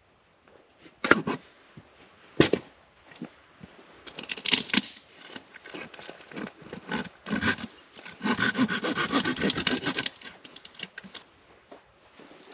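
Dry firewood being broken and sawn by hand: two sharp cracks in the first few seconds, then sawing strokes through wood, quickest and loudest for about two seconds near the end.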